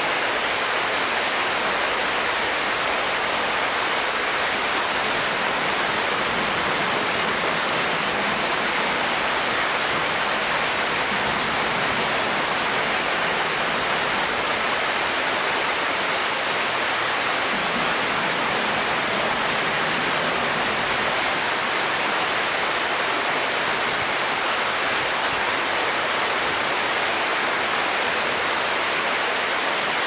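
Creek water rushing and splashing over a shallow rocky ledge: a steady, even rush that never changes.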